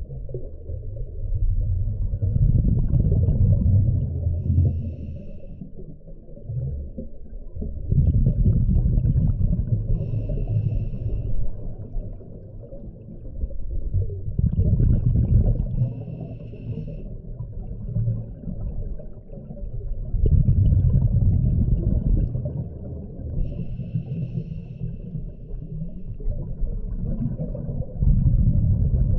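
Scuba diver breathing through a regulator underwater: the exhaled bubbles rumble in loud stretches about every six seconds, with a short higher hiss between breaths.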